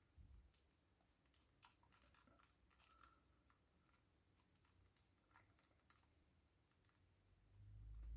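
Faint, scattered light clicks and ticks of small repair tools handling an iPhone 6s and its tiny screws, with a low rumble of handling near the end.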